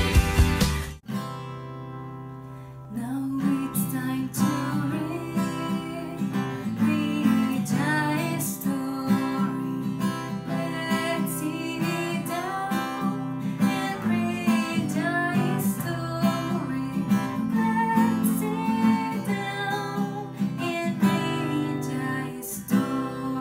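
A woman singing to her own strummed acoustic guitar. It starts with the tail of a brief intro jingle that cuts off about a second in, then the guitar plays quietly before the louder singing and strumming come in about three seconds in.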